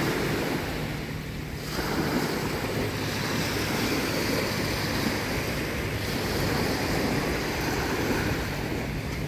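Small waves breaking and washing up a sandy beach in a steady wash, with a brief lull and then a fresh wave surging in about two seconds in. Wind buffets the microphone.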